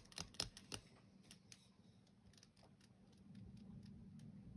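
Faint, quick clicks and taps, several close together in the first second and a half, then a few sparser and fainter ones. A faint low steady hum comes up about three seconds in.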